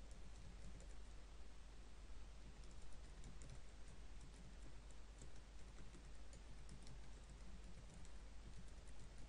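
Faint typing on a computer keyboard: scattered, irregular key clicks over a low steady hum.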